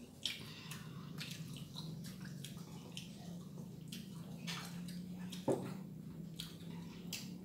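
Two children eating with their hands: soft wet chewing and mouth clicks and sips of water from a plastic cup, over a steady low hum. One sharp knock sounds a little past halfway.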